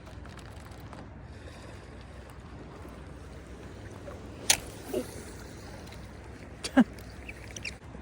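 Steady low wind and river noise, with a few sharp clicks and knocks from fishing tackle being handled; the loudest is a short crack about seven seconds in.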